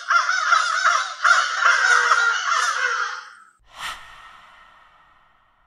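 Several crows cawing over one another for the first three and a half seconds, then a single sudden hit about four seconds in that rings and fades out over about a second and a half.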